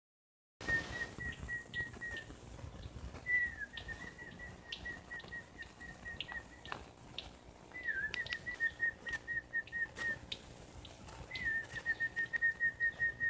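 A bird calling: runs of short, evenly spaced whistled notes at one high pitch, about five a second. Each run opens with a slightly bent note, and the runs repeat four times, a couple of seconds each, with a few faint clicks in between.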